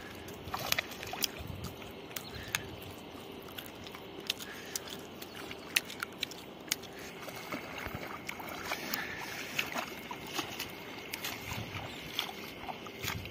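Water sloshing and splashing, with irregular small clicks and taps scattered throughout.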